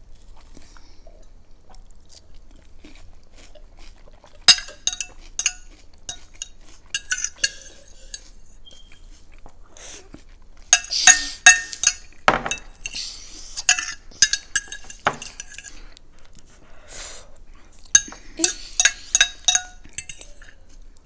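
A metal fork and spoon clinking and scraping against glass bowls and a plate during eating: clusters of sharp, ringing clinks, the busiest about halfway through and again near the end, with one heavier knock about twelve seconds in.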